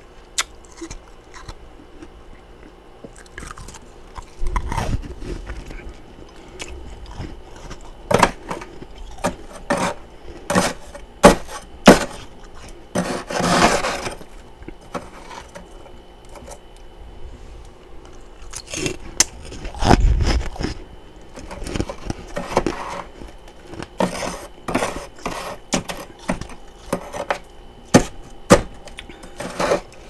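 Crisp, irregular crunches and clicks of packed freezer frost: first a chunk of frost crunched close to the microphone, later a metal spoon scraping and scooping frost off the freezer walls.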